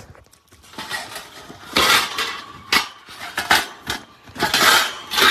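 Metal pieces clinking and rattling as they are handled, in several short clusters of clatters with the loudest near the end.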